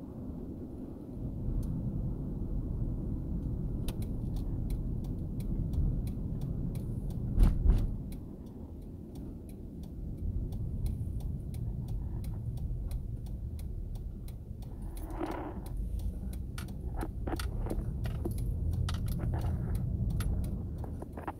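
Low rumble of a vehicle driving, with irregular light clicks and rattles from about four seconds in and a short loud thump about seven seconds in.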